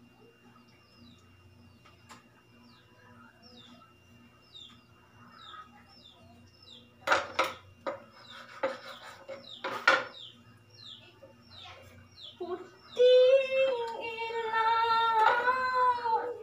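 A knife strikes a wooden cutting board several times while fish is sliced, a few sharp knocks around the middle. A bird chirps over and over in the background, a short falling chirp about twice a second. Near the end a woman's voice comes in, holding long sung notes, the loudest sound.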